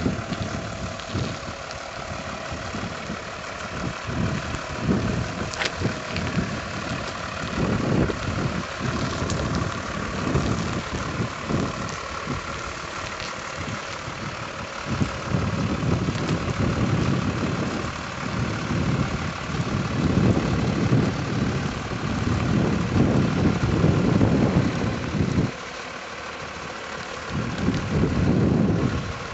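Iveco flatbed truck's diesel engine running at low revs as the truck reverses slowly, with uneven low gusts of wind buffeting the microphone that come and go.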